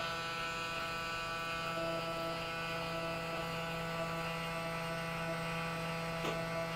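Braun Series 9 shaver's Clean & Charge cleaning station running its cleaning cycle with the shaver docked: a steady electric whirring hum.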